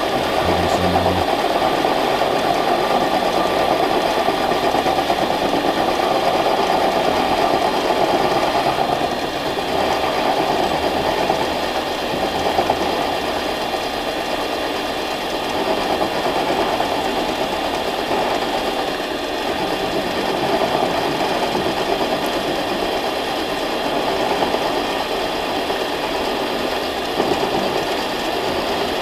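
Harbor Freight mini lathe running steadily, its motor and gearing turning a shaft.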